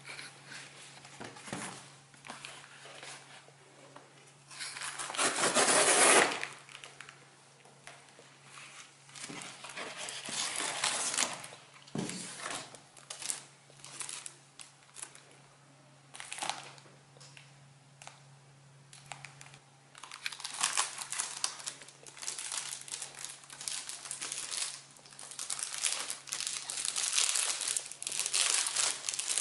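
Paper mailing envelope and plastic shrink-wrap rustling and crinkling in the hands as a parcel is opened, in irregular bursts, with a loud rustle about five seconds in. Dense crinkling of the plastic wrap fills the last third, over a faint steady low hum.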